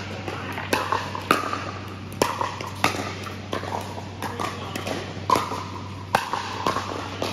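Pickleball paddles striking a plastic pickleball in a rally: a string of sharp pops about half a second to a second apart, each ringing briefly in a large hall, over a steady low hum.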